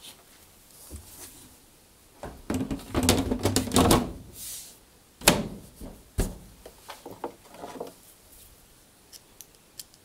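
Tumble dryer's top cover being set back on the cabinet and slid into place: a stretch of scraping and rattling, then a few sharp clicks and knocks as it seats, with small ticks after.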